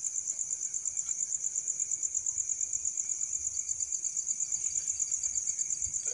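Cricket calling loudly at night: a continuous high-pitched trill with a rapid, even pulse, and a fainter second insect tone underneath.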